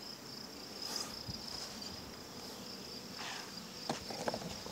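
A steady high-pitched insect trill in the background, with a soft rustle about three seconds in and a few light clicks near the end.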